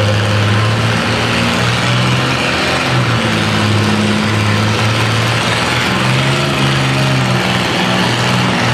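Massey-Harris antique tractor engine running hard while pulling the sled in a tractor pull. The loud, steady note wavers slightly up and down in pitch.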